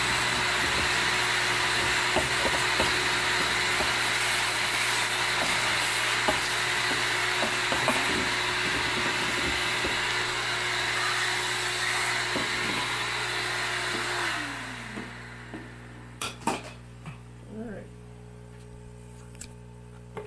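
Vacuum cleaner running with a steady whine as its hose nozzle sucks sawdust off a freshly CNC-carved wood relief, with scattered ticks. About fourteen seconds in, the motor is switched off and its whine drops as it winds down, followed by a few knocks.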